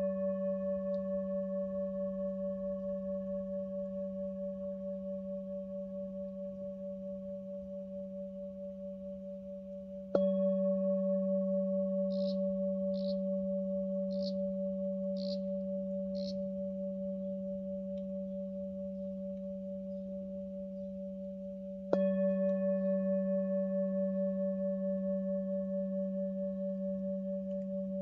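Singing bowl struck with a wooden mallet twice, about ten seconds in and again about twenty-two seconds in, each strike ringing on for many seconds with a low hum and several higher overtones that fade slowly with a pulsing wobble.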